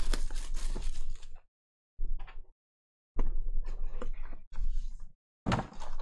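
Cardboard Encased basketball card box being handled and its lid pulled open, with scraping and crackling of card and foil wrap, in several short bursts separated by silent gaps.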